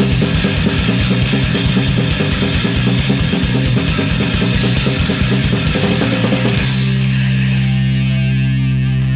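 Live rock band playing loud and fast: drum kit hammering a fast, even beat under distorted electric guitars and bass. About six and a half seconds in the drumming stops and a held guitar and bass chord rings on steadily.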